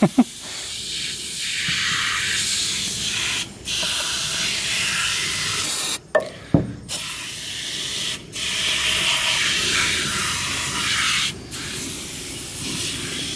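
Aerosol can of oven cleaner spraying in long hissing bursts, with short breaks about every two to three seconds, about five sprays in all.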